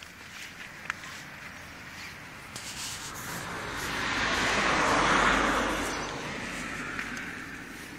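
A vehicle passing on the street: a rushing road noise that swells over a few seconds, peaks about five seconds in, and fades away.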